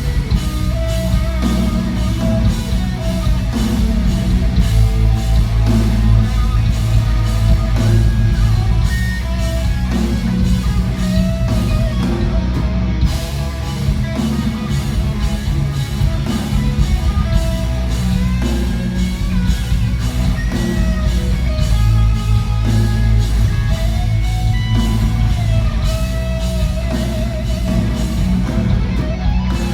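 Heavy metal band playing live: distorted electric guitars over a driving drum beat, with a lead melody line carrying over the top in a mostly instrumental passage.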